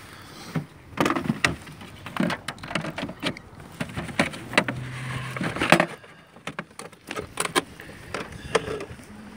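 Irregular clicks, knocks and rustles of a hand-held phone being moved and handled, with knocks on wooden pier boards.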